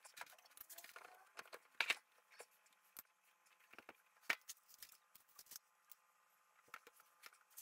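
Faint, scattered small clicks and ticks from the plastic screw-in feet of a Beko integrated freezer being turned by hand to adjust its height, the sharpest about two seconds in and again past four seconds.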